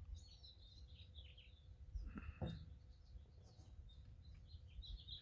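Small birds chirping faintly and repeatedly with short, high calls, with one brief, slightly louder soft sound about two seconds in.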